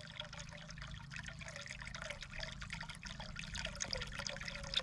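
Water pouring into a cattle water trough as it is filled, a steady splashing trickle that grows slightly louder.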